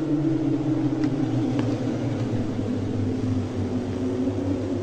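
A low, sustained rumbling drone from a dark Halloween ambient soundscape, its deep tones slowly shifting in pitch, with a couple of faint clicks about a second in.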